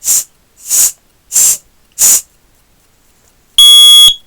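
Four short hissing bursts about two-thirds of a second apart. Then, near the end, a Nest Protect smoke detector sounds one loud, high-pitched half-second alarm beep, the first of its fire-alarm beeps going off at detected smoke.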